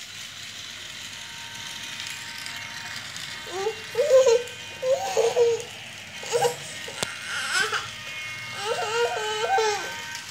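Battery-operated toy train running round its plastic track with a steady whir and rattle. From about three and a half seconds in, a small child's high-pitched wavering cries and babbling come in several short bouts.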